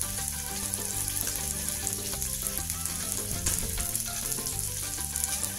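Whole snakehead fish frying in shallow oil in a wok: a steady sizzle.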